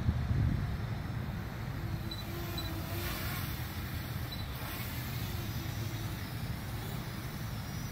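Parrot ANAFI quadcopter flying, its propellers giving only a faint thin whine under steady wind noise on the microphone; the wind rumble is strongest in the first second.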